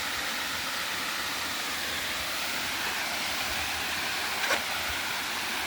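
Steady rushing of a waterfall: an even hiss of falling water, with one small tick about four and a half seconds in.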